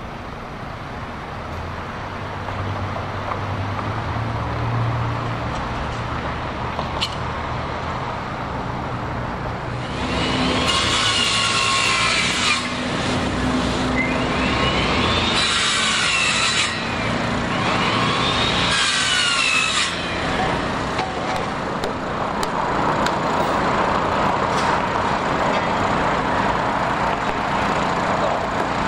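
Three bursts of a handheld power tool working on the site's steel and timber, each winding up and falling away in pitch, over steady noise of heavy machinery and street traffic.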